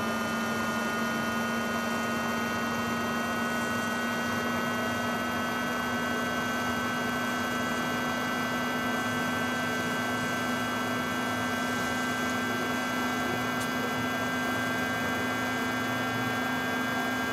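Microwave oven running: a steady electrical hum with a thin whine of higher tones above it.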